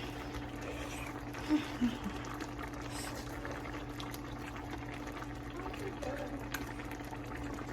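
A pan of stir fry simmering, a steady bubbling under a constant low electrical hum, with two brief low voice sounds like "mm" about one and a half seconds in.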